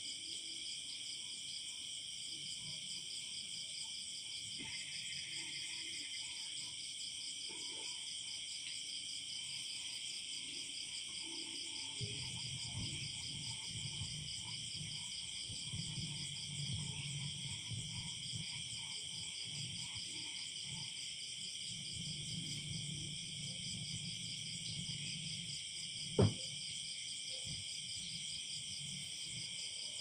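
Night chorus of crickets, a steady high-pitched trilling throughout, with low frog calls coming and going from about twelve seconds in. One sharp click stands out a few seconds before the end.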